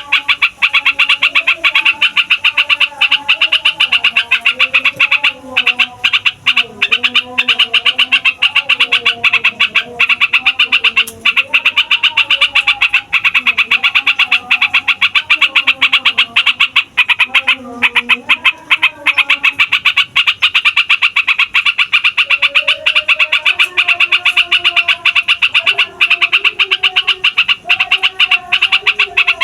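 Yellow-vented bulbul (trucukan) song in a long unbroken run, over a fast, steady chatter, with lower wavering calls from other birds underneath.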